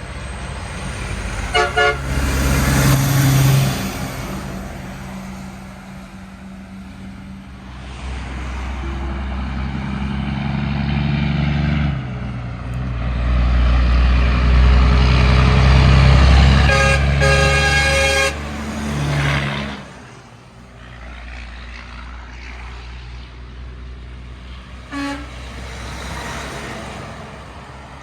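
Train horn sounding a chord of several notes over the deep rumble of a passing locomotive: two short toots near the start, a longer blast of about a second and a half later on, and one brief toot near the end.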